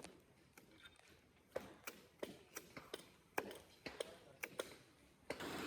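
Faint, sharp chopping knocks of a blade striking wood, about three a second. Near the end a sudden, steady rushing noise sets in.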